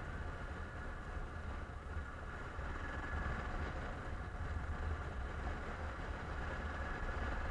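Wind rumbling steadily on the action camera's microphone as a 1999 BMW F650 motorcycle rides along, with its single-cylinder engine running underneath at a steady speed.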